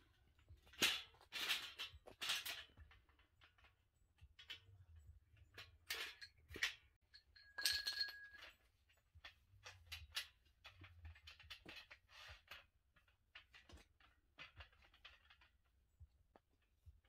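Clinks, clacks and rattles of a folding steel mesh tire-mounted table being unfolded and hooked onto a Jeep tire, with a short high metallic note about eight seconds in.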